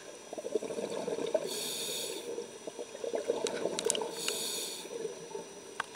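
Muffled underwater sound of water moving around the camera, with two short hisses, about a second and a half in and again past four seconds, and a few faint clicks.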